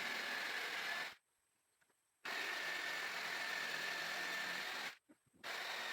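Power tool cutting plywood, running with a steady whine. It sounds in three stretches, each starting and stopping abruptly with dead silence between them.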